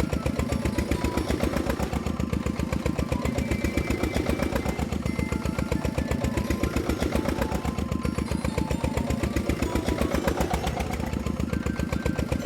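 Engine sound of a heavy construction machine: a steady, rapid, even chugging that goes with a toy grader levelling sand.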